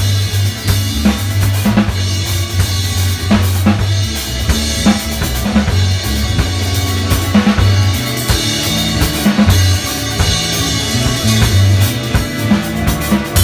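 Dub music: a steady drum-kit beat with bass drum and snare, under a deep bass line of held notes.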